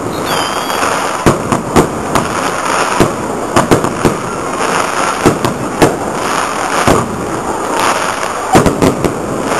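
Fireworks display: a rapid, irregular string of sharp bangs from bursting firework shells, some close together in quick flurries, over a continuous crackle and rumble.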